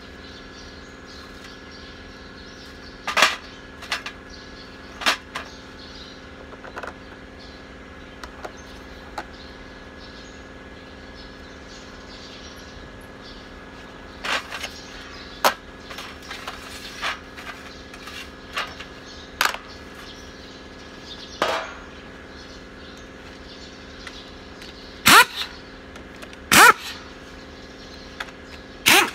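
Irregular metallic clinks and clanks of bolts and hand tools being handled in a steel parts tray on top of a diesel engine, with the loudest knocks near the end, over a steady background hum.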